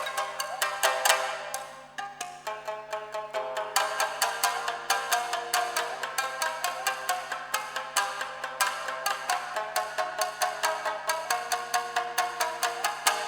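Tsugaru shamisen playing a fast rock-style piece, the bachi plectrum striking the strings in sharp percussive strokes. The playing thins briefly between about one and two seconds in, then picks up again in a steady driving run of strokes.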